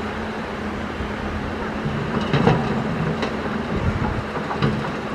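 Caterpillar 320 hydraulic excavator's diesel engine running steadily under load. From about two seconds in come several sharp knocks and clatters of stones being handled as the machine loads rock.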